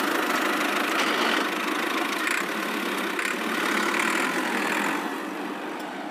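A tractor-like engine running steadily at idle, fading down near the end.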